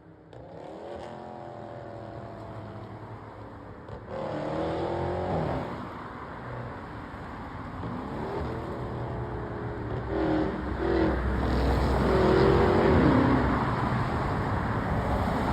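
Dodge Charger Scat Pack's 392 HEMI V8 running through catless mid pipes, accelerating in several pulls, the exhaust note rising in pitch each time and getting louder toward the end.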